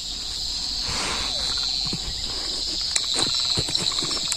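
A steady chorus of insects, crickets trilling as one continuous high buzz, with a few faint clicks in the second half.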